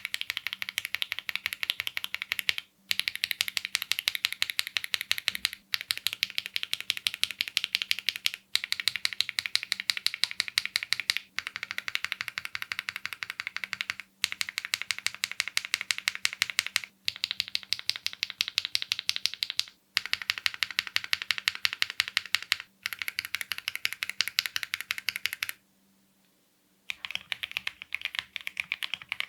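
Mechanical keyboard fitted with Leobog Nimbus V3 linear switches, typed on fast in runs of about three seconds with short breaks, as a sound test. The keystrokes come as dense clacks, and there is a longer pause near the end.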